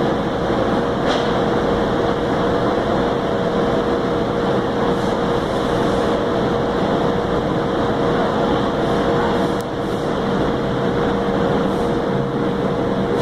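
Steady machinery drone in a workshop: a constant noise with an unchanging hum tone that does not vary.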